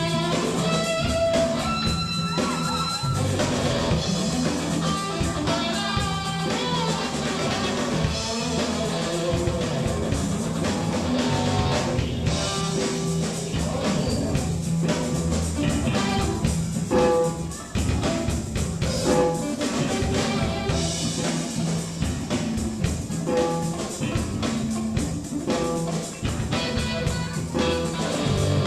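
Rock band playing a song: guitar over a drum kit, with a steady bass line.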